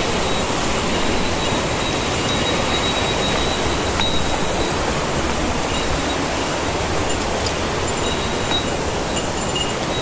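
Mountain stream rushing over boulders and small cascades: a steady, unbroken white-water rush.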